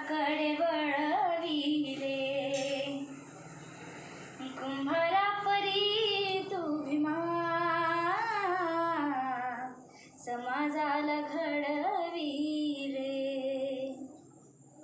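A young girl singing alone without accompaniment, drawing out long, wavering held notes with slides in pitch. There are short breaths or pauses about four and ten seconds in.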